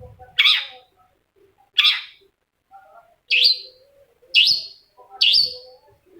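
Long-tailed shrike (cendet) giving a series of five loud, sharp calls, each about a second apart, with fainter lower chattering between them.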